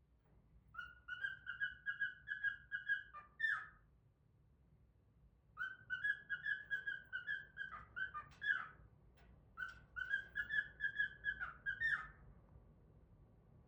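Cockatiel whistling: three phrases of quick, evenly repeated notes at one pitch, each ending in a louder, slightly higher note.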